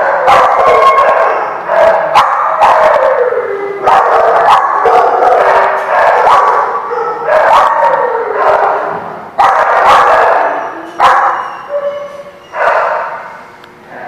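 Small dogs barking and yapping at play, loud overlapping calls about once a second, many falling in pitch, with sharp clicks among them; the barking eases off near the end.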